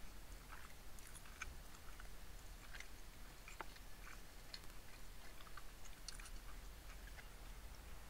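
Faint eating sounds from a hot-pot meal: chewing, with scattered small clicks at an irregular pace over a low steady hum.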